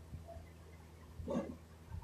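Quiet hand work on an automatic transmission valve body: a steady low hum, with faint handling of small metal parts on the plate and one short sound about a second and a half in.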